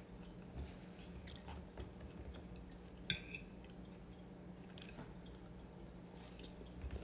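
Quiet eating at the table: a few faint clicks of a fork on a plate, with a brief scrape about three seconds in, and soft chewing, over a low steady hum.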